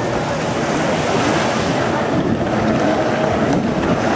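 Several racing personal watercraft (jet skis) running at speed close by, a wavering engine whine over a steady rush of water and spray.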